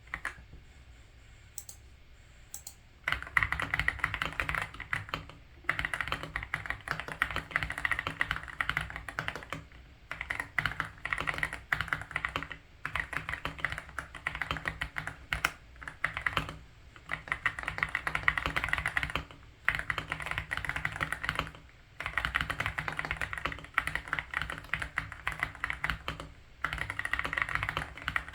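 Aula F87 Pro mechanical keyboard with Haimu Ice Silver linear switches being typed on fast, in runs of a few seconds broken by short pauses, starting about three seconds in.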